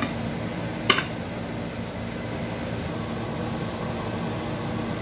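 A steady low hum and hiss throughout, with a single sharp knock about a second in as the inverted plate and glass bowl of flan are set down on the stone countertop.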